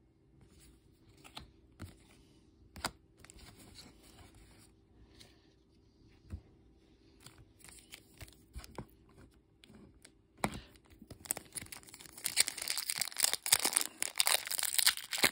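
Foil booster-pack wrapper crinkling and tearing open, starting about ten seconds in and growing louder. Before it, a few light taps of trading cards being handled and laid down.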